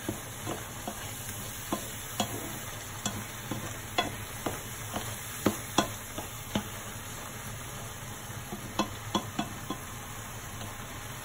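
A wooden spatula stirring and scraping a simmering mixture in a non-stick frying pan, with a steady sizzle and bubbling under irregular knocks of the spatula against the pan.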